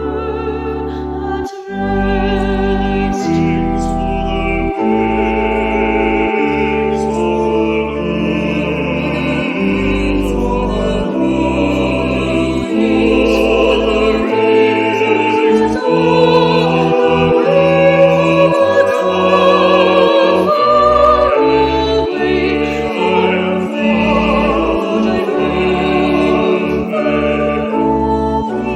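Classical sacred music: a solo singer with vibrato over sustained instrumental chords with a deep bass line, the voice coming in about five seconds in.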